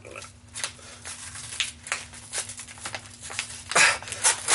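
A thick paper phone book being torn in half by hand. Sharp paper crackles come as the pages start to give, then a loud rip near the end as it tears through.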